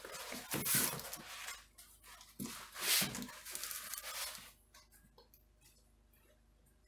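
Large sheet of cardboard rustling and scraping as it is handled and pressed flat against a fireplace opening: a few scratchy scuffs, the loudest about a second in and about three seconds in, then it goes almost quiet.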